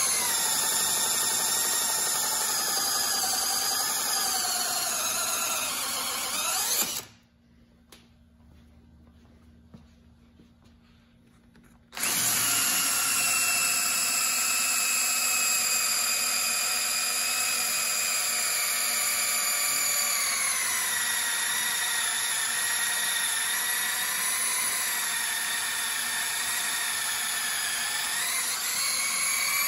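Cordless drill running under load, boring the old rubber bushing and steel sleeve out of an air shock's mounting eye. It stops after about seven seconds and starts again about five seconds later; in the second run its pitch drops about two-thirds of the way through and rises again near the end.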